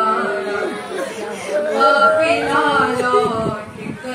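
A woman's solo voice chanting a nauha, an Urdu mourning lament, unaccompanied, with long held, wavering notes.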